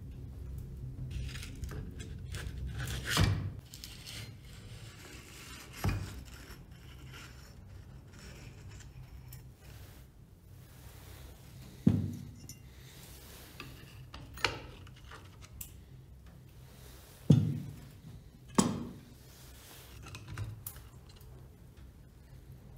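Steel parts of an old grease gun being handled out of a glass of rust remover. There are about six sharp clinks and knocks, spread out, as metal strikes the glass and the bench.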